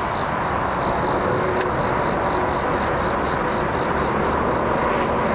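Steady rush of highway traffic.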